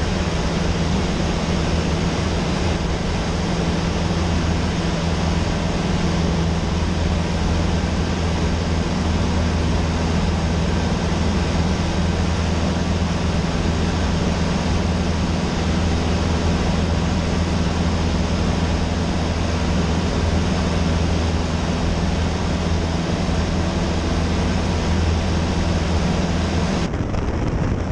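Cessna 152's four-cylinder Lycoming engine and propeller droning steadily in cruise, heard inside the cockpit with a constant rush of airflow noise.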